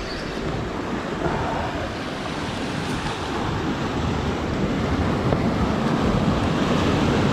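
Sea surf surging and washing against a rocky shore, swelling louder over the seconds.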